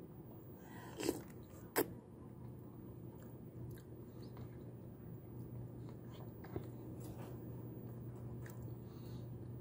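Close-up eating sounds: a person chewing and biting soft rice noodles, with faint mouth clicks. Two sharp clicks stand out about a second and two seconds in, over a steady low hum.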